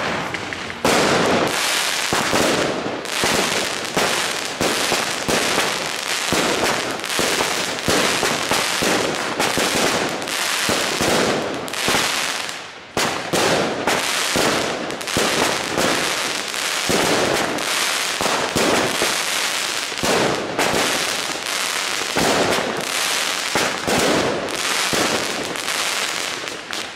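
Two Bonfireworks Dragon Balls firework cakes (16 shots each) firing: sharp shots and star bursts going off in quick succession, about one or two a second, with only short gaps.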